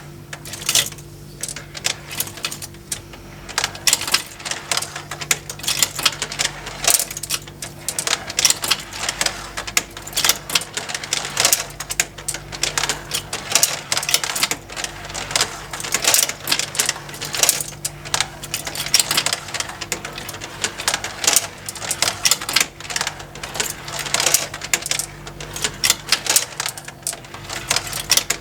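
Plastic marble run toy with motorized conveyors: marbles clicking and clattering irregularly along plastic tracks and lifts, over the steady hum of the small motor driving the conveyors.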